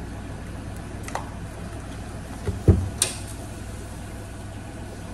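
Steady low hum of a small kitchen, with a dull thump about two and a half seconds in followed by a short sharp click.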